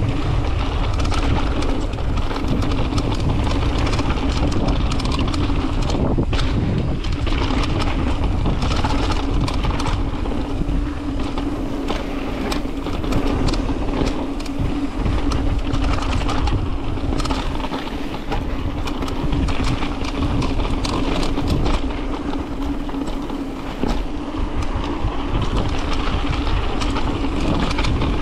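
Mountain bike descending a rough dirt trail: steady tyre and wind noise with constant rattling and knocks from the bike over bumps, and wind on the camera microphone.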